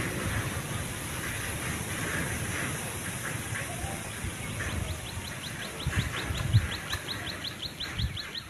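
Zebu cow grazing close to the microphone, with irregular low thumps and rustles of grass being cropped. About halfway through, a rapid, even run of high chirps begins, about five a second.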